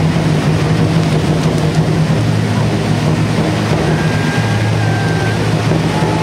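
Several tezutsu, hand-held bamboo-tube fireworks, burning at once as they shoot jets of sparks: a loud, steady rushing noise with a deep rumble underneath.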